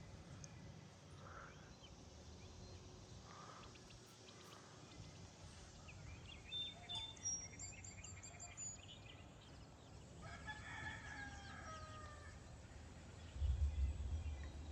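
A rooster crows once, about ten seconds in, a drawn-out call falling in pitch, over faint chirps of small birds. Near the end a low rumble comes in.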